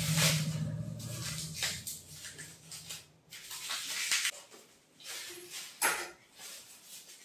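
Plastic wrapping crinkling and rustling in irregular handfuls as a small packed item is unwrapped, with a sharper crackle about six seconds in.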